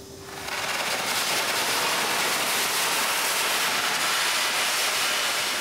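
Welding on the tunnel boring machine: a steady, even hiss that fades in over about half a second and holds.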